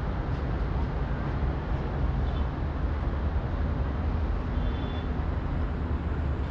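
Steady low outdoor rumble with no pauses, with two faint, short high chirps in the middle.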